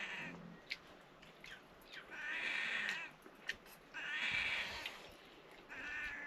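An animal calling over and over: four drawn-out, pitched calls, each close to a second long and about two seconds apart, with a few faint clicks between them.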